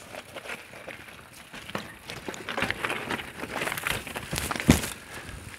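Mountain bike clattering down a rocky trail: tyres knocking over stones and the bike rattling, with one sharp knock just before the end.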